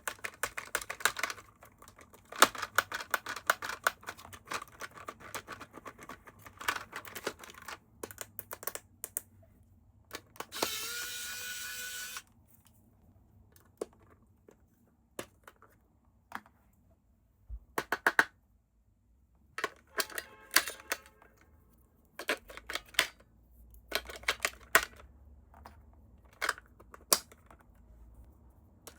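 Quick runs of clicks and taps from hands handling plastic toy parts and packaging. About ten seconds in, a small electric motor whirs up briefly for about two seconds.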